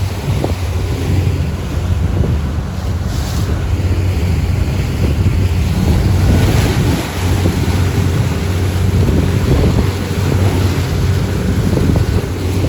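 Motorboat under way, its engine making a steady low hum. Wind buffets the microphone and water rushes past the hull.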